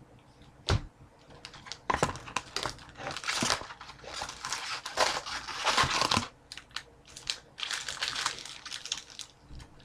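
Foil-wrapped trading-card packs crinkling and rustling as they are handled and pulled out of the cardboard box, with a few sharp clicks and knocks among several bursts of crackling.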